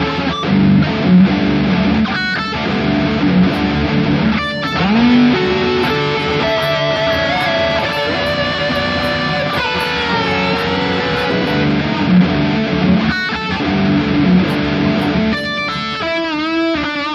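Multitracked electric guitars playing together: a lead line with pitch bends over lower rhythm playing, ending in a wide vibrato near the end.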